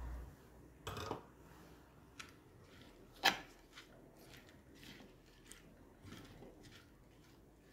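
A spoon mixing papaya pickle in a clay pot. It is quiet, with a knock about a second in, a sharp click about three seconds in, then a run of faint light ticks.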